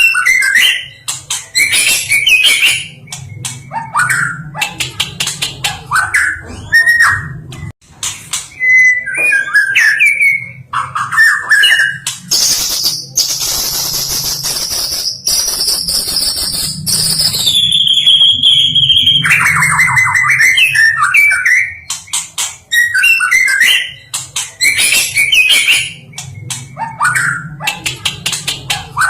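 White-rumped shama singing a loud, varied song of rapid clicks and short whistled phrases. Around the middle it gives a long harsh phrase that slides down in pitch into a buzzy trill, over a steady low hum.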